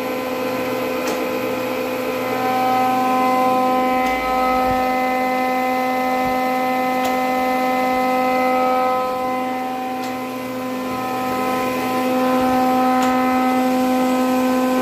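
Grizzly G1021 thickness planer running with a steady motor hum, and a faint click about every three seconds. The clicking comes from the freshly reassembled gearbox, which the owner suspects is the chain tensioner, the chain touching itself, or a gear slipping.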